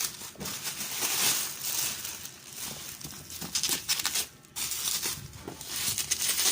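Thick parcel wrapping being torn open by hand: plastic crinkling and tearing in quick, irregular rustles, with a brief pause about four and a half seconds in.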